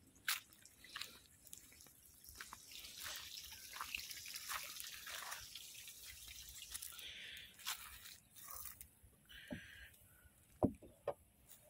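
Faint trickling and dripping of irrigation water, with scattered small clicks and crackles.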